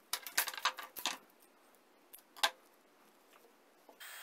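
Handling clatter on a wooden tabletop: a quick run of clicks and knocks lasting about a second, then one sharp knock. Right at the end a Greenworks cordless drill starts running with a steady whine.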